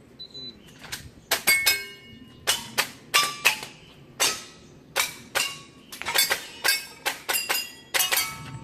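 Rapid string of airsoft pistol shots, about twenty in quick runs with brief pauses between them, many followed by a short metallic ring as BBs strike steel targets.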